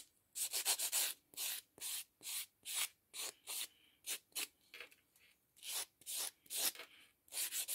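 Short rasping strokes of a nail buffer block rubbed back and forth across a plastic artificial nail tip, about two a second, quicker near the start and end, with a brief pause a little past the middle. The buffing takes the shine off the tip so the polish will adhere.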